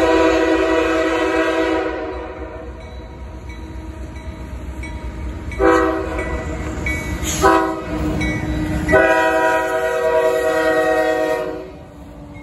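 CSX freight locomotive's multi-note air horn sounding the grade-crossing signal as the train approaches the crossing: a long blast ending about two seconds in, two shorter blasts around six and seven and a half seconds in, then a long blast that stops near the end. A steady low rumble of the diesel locomotives and train runs beneath it.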